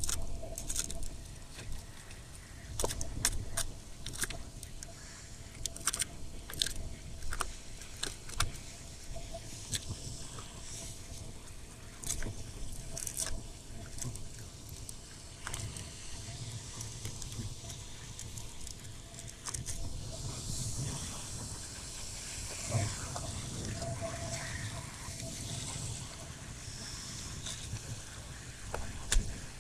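Metal pliers scraping and knocking against rough coral rock while prying sea urchins loose: irregular sharp clicks and scrapes, in places several a second, over a low steady rumble.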